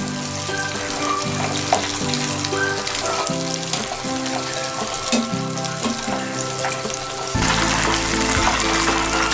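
Battered chicken pieces deep-frying in hot oil, a steady sizzle with fine crackling. The sizzle grows louder and denser about seven seconds in.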